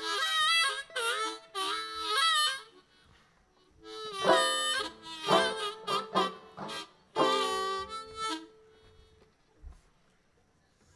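Harmonica played solo: two short passages of chords and bending notes, separated by a pause of about a second, the second passage longer. It stops about two and a half seconds before the end.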